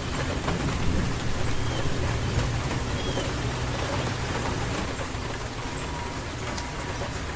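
Steady rain falling, with a low rumble of distant thunder that fades away about halfway through. A couple of faint short bird chirps sound through the rain.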